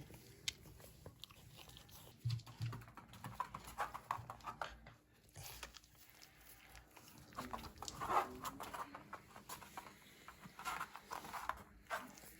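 Dog chewing, with a run of faint, irregular crunches.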